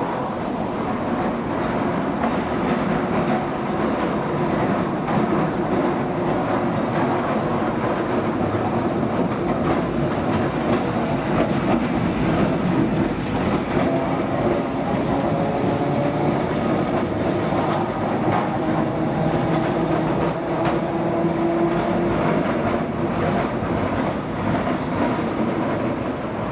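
Vintage tram running along the track: a steady rolling rumble, with faint steady whining tones through the middle and later part.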